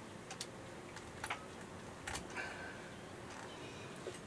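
A few faint, scattered clicks of a tiny flathead screwdriver prying at the plastic cover plate of a Tacktick T101 wireless wind transmitter housing, the plate just starting to come loose.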